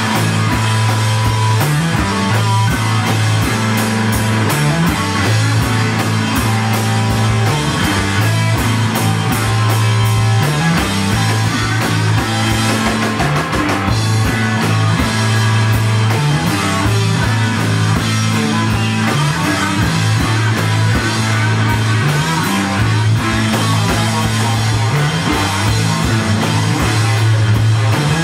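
Loud live rock band playing: distorted electric guitar, bass repeating a riff, and drum kit with steady cymbal hits.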